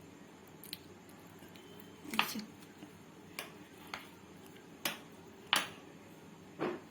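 A knife slicing steamed colocasia-leaf rolls, each cut ending in a short sharp knock of the blade on the surface beneath, about six or seven knocks at uneven intervals.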